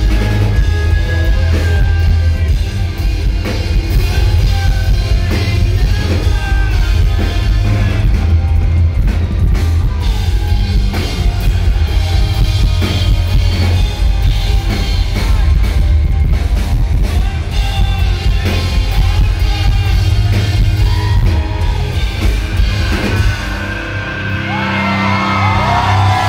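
Rock band playing live at full volume: drums, distorted electric guitar and bass under a male lead vocal. Near the end the low end drops away and shrill yelling voices rise over the music.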